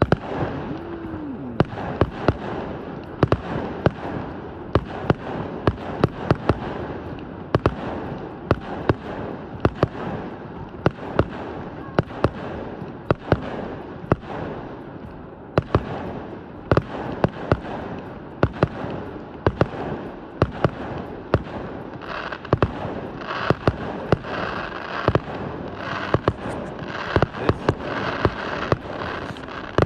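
Fireworks display going off in a steady barrage of sharp bangs, several a second. From about two-thirds of the way through, a thick crackling fills in between the bangs.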